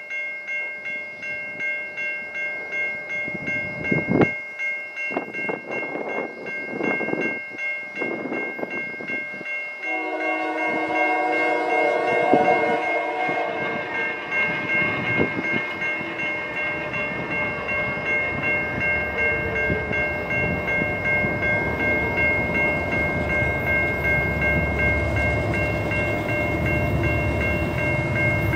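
An approaching CN freight train led by GE diesel locomotives. A bell rings steadily about twice a second, and one long multi-note horn blast sounds about ten seconds in. The locomotives' engine rumble grows louder as the train draws near.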